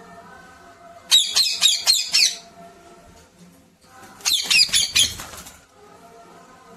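A pet parrot giving two bursts of rapid, shrill squawking calls, each a quick run of about six or seven sharp notes.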